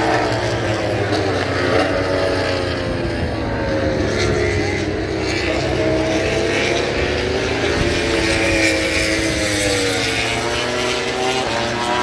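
Moto2 race motorcycles running on the circuit, their three-cylinder Triumph 765 engines passing by. Several engine notes overlap, each rising and falling in pitch.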